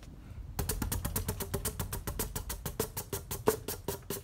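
Encon Monterrey ceiling fan coasting down just after being switched off from high speed, giving a rapid, even clicking of about ten ticks a second that starts about half a second in.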